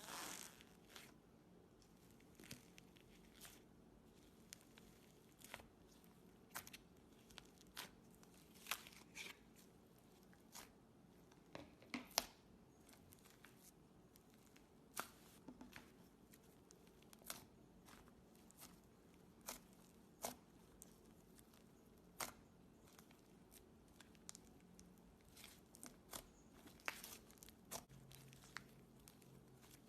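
Slime being pressed and stretched by hand, giving faint, irregular sticky pops and crackles, a few each second at most.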